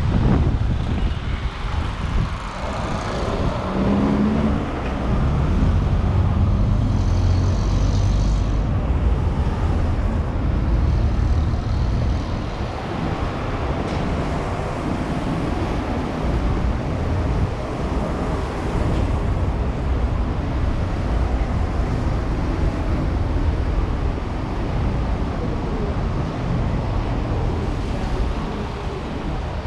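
Street traffic: cars running and passing on a wet road, with a heavy, steady low rumble underneath.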